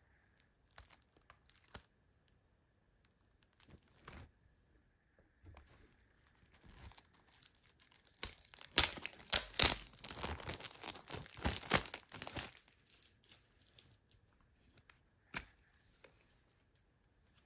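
Plastic shrink-wrap being torn and crinkled off a CD jewel case, with light scattered crackles at first and a dense, louder stretch of crackling in the middle. A single sharp click near the end as the plastic jewel case snaps open.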